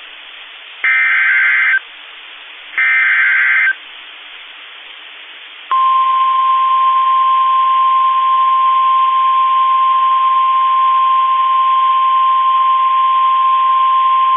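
NOAA Weather Radio emergency alert signal: two bursts of the SAME digital header's warbling data tones, each about a second long, then a single steady, loud 1050 Hz warning alarm tone starting about six seconds in and holding for about nine seconds. This is the standard signal that opens a newly issued warning.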